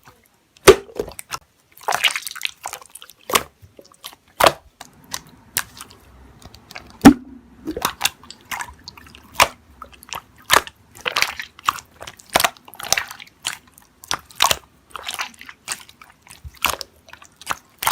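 Hands playing with slime: irregular sharp clicks and pops, about one or two a second, with softer wet squishes in between.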